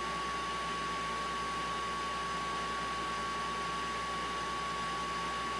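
Steady whirring hiss of a small electric blower-type appliance running, with a constant high whine held throughout.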